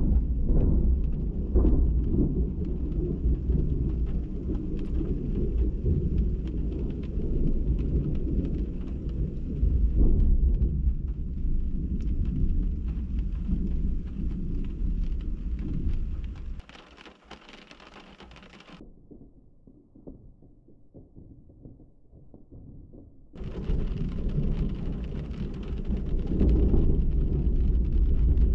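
Thunder from a nearby night thunderstorm, a long low rolling rumble that swells and fades in waves over a steady rain hiss. Past the middle it drops to a faint hiss for several seconds, then the rumbling returns.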